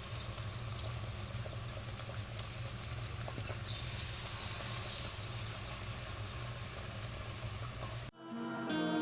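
Hot corn oil sizzling steadily as battered potato slices deep-fry. It cuts off sharply near the end and acoustic guitar music starts.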